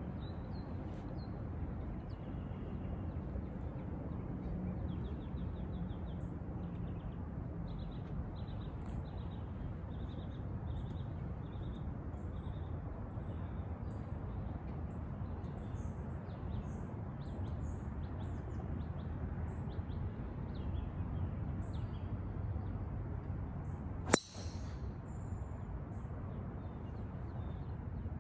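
Birds chirping over a steady low background noise, then near the end a single sharp crack of a golf club striking a ball off the tee.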